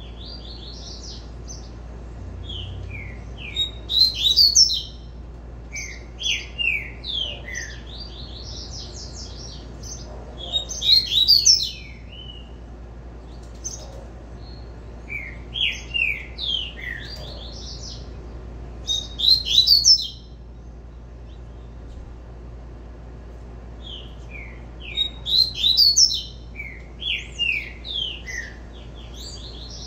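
Caged double-collared seedeater (coleiro) singing its 'tui-tui' song: about six phrases of quick, falling notes, each lasting one to two and a half seconds, with a few seconds' pause between them.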